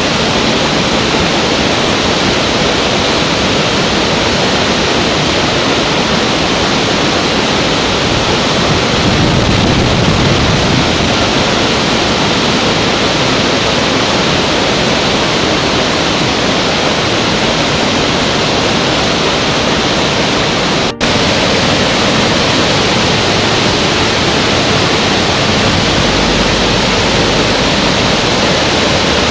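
Large waterfall: a steady, dense rush of falling water, broken by a momentary dropout about 21 seconds in.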